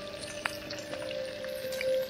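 Background music with steady held notes, over the faint sizzle of a whole porgy frying in oil in a steel pan, with one light click about half a second in.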